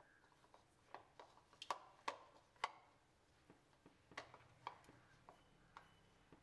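Irregular light clicks and taps of a hand kneading milk powder dough in a plastic bowl, fingers and the bowl knocking as the dough is pressed and turned, with a few sharper knocks about two seconds in.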